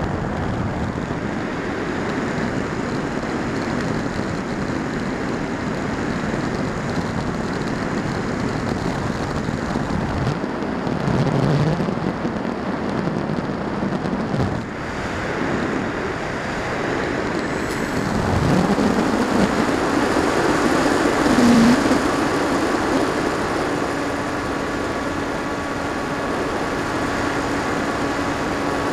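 Rushing airflow over the onboard camera of a Firstar 2000 V2 glider in flight, a steady noisy buffeting. A steady whine joins about two-thirds of the way in.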